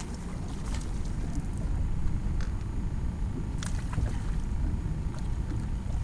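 Low rumble of wind buffeting the microphone, with a few light clicks and knocks scattered through it.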